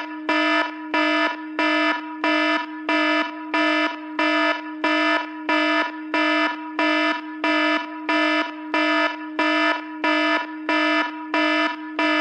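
Apple ringtone in the style of an alarm: a buzzy electronic tone pulsing at a steady rhythm, just under twice a second, each pulse starting with a click.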